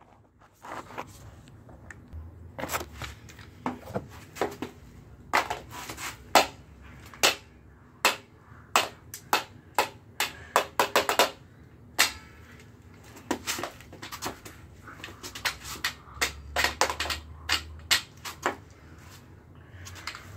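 Repeated sharp knocks and cracks of a hand tool striking an LG smartphone on a concrete floor, irregular blows with some coming in quick clusters.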